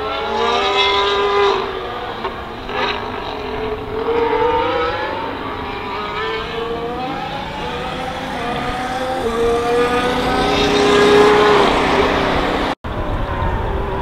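Formula 1 cars' 1.6-litre turbocharged V6 hybrid engines on track, their pitch climbing and falling in steps as they shift gears through the corners. The sound peaks as a car passes closer about eleven seconds in, then cuts out for a moment.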